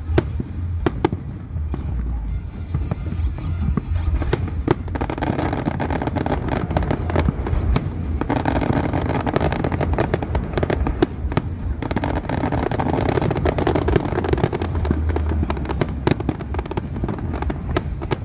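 Fireworks display: a rapid string of sharp bangs and crackles, growing much denser about four seconds in, with a low rumble underneath.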